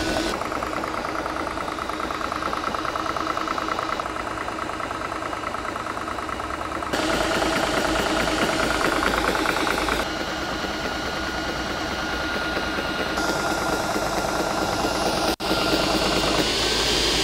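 Air Venturi Nomad 2 portable high-pressure compressor running on 12-volt power, pumping steadily as it charges a PCP air rifle. Its level jumps abruptly up or down a few times.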